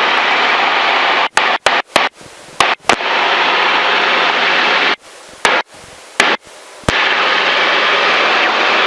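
Helicopter engine and rotor noise heard through the headset intercom, steady with a low hum, cut off abruptly several times with sharp clicks as the radio or intercom switches in and out.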